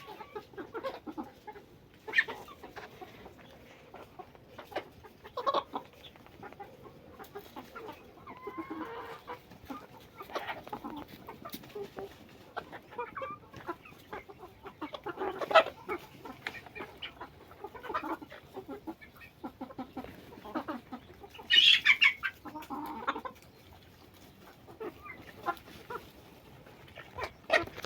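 Chickens clucking on and off, with one louder, higher-pitched call about three-quarters of the way through.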